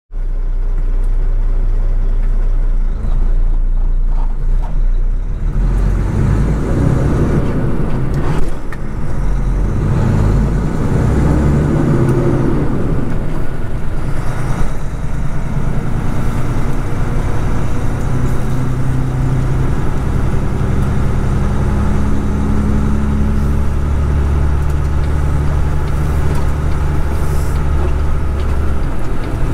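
Kenworth road train's diesel engine running loud and steady. Its pitch steps up and down several times in the first half and then holds steady.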